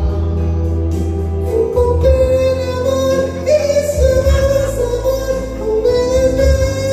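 Live singing into a microphone over backing music with a steady bass: one voice holding long, slightly wavering notes, the longest from about two seconds in to the end.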